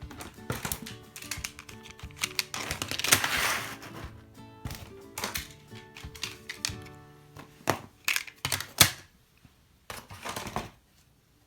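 Hard plastic toy-train track pieces clicking and clattering as they are handled and fitted together, over light background music. The clicks are irregular and fall quiet about nine seconds in.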